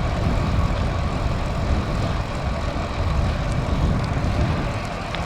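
Wind buffeting a bike-mounted action camera's microphone as a road bicycle rides into a strong crosswind from the left front: a steady rush of wind noise, heaviest in the low rumble.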